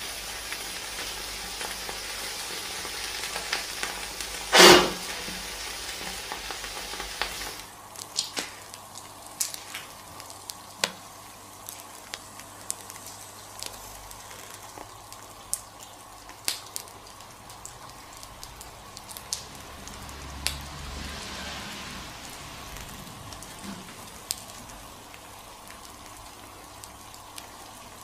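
Laptop burning under molten lava, sizzling and hissing steadily, with one loud sharp pop about five seconds in. The hiss then stops abruptly and scattered crackles and ticks go on from the charred laptop.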